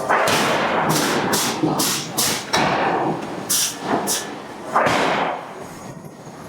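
Hydraulic forging hammer striking a hot steel billet: a run of heavy blows at uneven intervals, each with a sharp hiss, easing off near the end.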